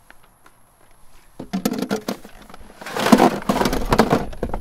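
Soda cans and a cardboard 12-pack box being packed into a cooler: a few knocks and clinks, then a loud stretch of cardboard rustling and scraping about three seconds in.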